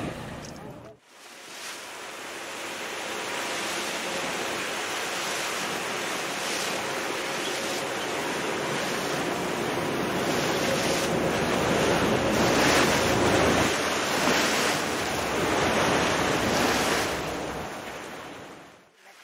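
Sea water rushing and splashing with wind buffeting the microphone, from a boat in choppy open sea as a pod of dolphins breaks the surface alongside. The sound cuts out briefly about a second in, then builds back up.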